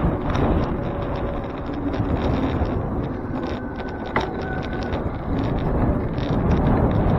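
Wind buffeting the microphone of a camera on a moving bicycle, a steady low rumble mixed with road noise, with a sharp click about four seconds in.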